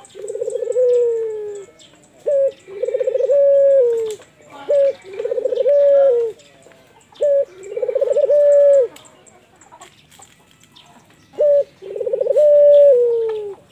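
Barbary dove (puter) cooing five times. Each call is a short note followed by a long, rolling coo that rises, holds and then falls away, with a few seconds between calls.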